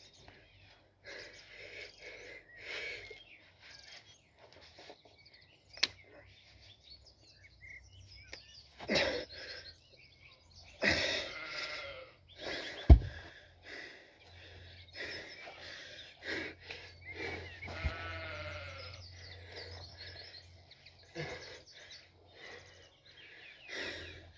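Sheep bleating on and off, with wavering calls, and a single heavy thud about halfway through as the 70 kg stone is dropped onto the grass.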